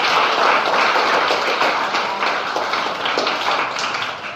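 Audience applauding: many hands clapping in a dense patter that thins out and fades near the end.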